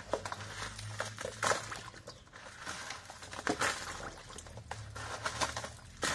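Dried guajillo chiles rustling and crackling as they are dropped from a plastic tub into a pot of water and pressed under by hand, with light splashing.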